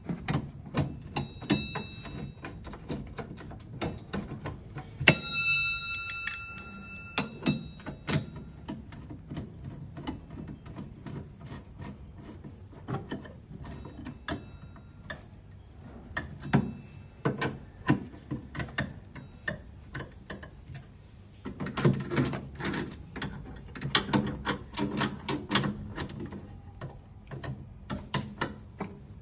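Hand tools and metal parts clicking and knocking irregularly during air conditioner repair work. A few strikes ring out metallically, about a second in and again around five to seven seconds in, and a dense run of clicks comes near the end.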